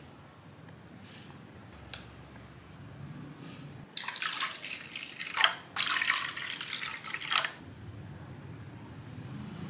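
Water poured from a plastic measuring cup into a wooden mixing bowl, splashing onto eggs and sugar. It starts about four seconds in, lasts about three and a half seconds, and breaks briefly partway through.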